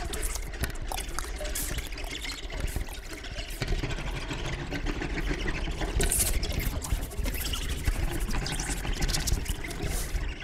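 Experimental noise soundtrack: a dense crackling, hissing texture with scattered clicks and short bursts of hiss over a steady low rumble.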